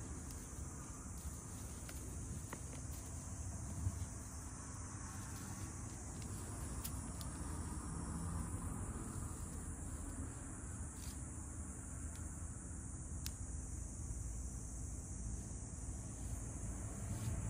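Steady high-pitched chirring of an insect chorus, over a low rumble, with a few faint ticks.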